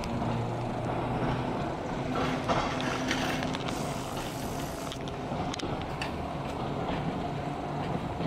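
KTM tram running on street track: a steady hum with clicks and rattles from the wheels and body, most of them between about two and six seconds in.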